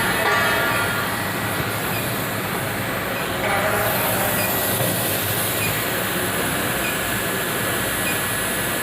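Gas preheating torch burning steadily on a steel ring before welding, a continuous roar and hiss with no breaks.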